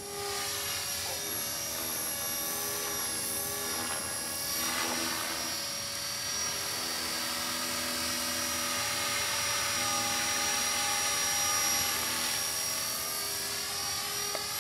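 Electric radio-controlled helicopter in flight: the motor's steady high whine and the rotor's buzz, the pitch sweeping up and down several times as it manoeuvres.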